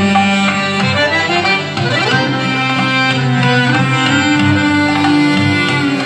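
Albanian folk band playing an instrumental passage: a clarinet carries the melody over accordion, with a lute and a tarabuka goblet drum beneath.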